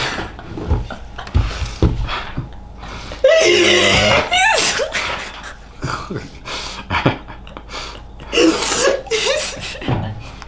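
Two people laughing hard, a girl and a man, with gasping breaths and shrieking bursts of laughter, loudest a few seconds in.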